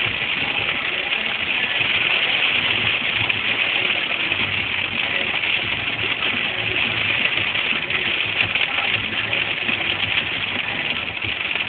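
Hailstorm: hail coming down hard, a dense steady clatter of countless small impacts.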